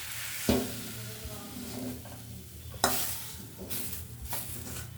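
Stir-fried flat beans being stirred and scraped around a hot kadai, over a light sizzle; sharp scrapes come about half a second and about three seconds in.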